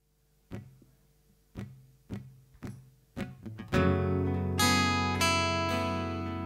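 Acoustic guitars starting a song: a few sharp, separate strokes, then full strummed chords ringing out from about four seconds in.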